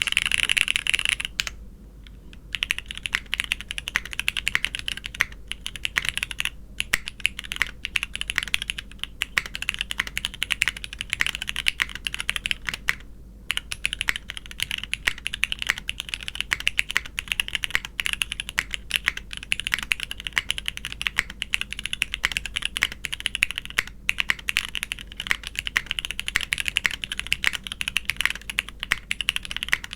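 Fast typing on a custom tenkeyless mechanical keyboard with broken-in, dry Cherry MX Black linear switches, a top-mounted ABS plate and GMK keycaps: a dense, uneven run of keystroke clacks. There is a short pause just after the start and another about halfway through.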